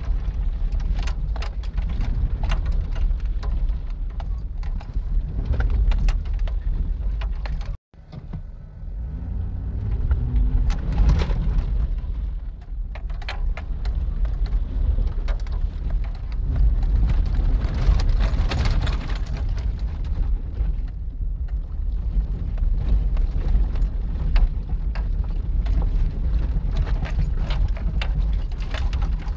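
A Chevrolet heard from inside its cab as it creeps along a muddy off-road trail: a steady low engine and tyre rumble, with frequent rattling and clicking from loose things in the cab. The sound cuts out completely for a moment about eight seconds in.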